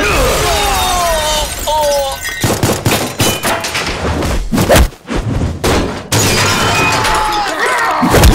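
Film fight-scene sound effects: glass shattering and men crying out, then a rapid run of heavy hits and thuds from about two and a half seconds in, with a very loud hit near the end, over background music.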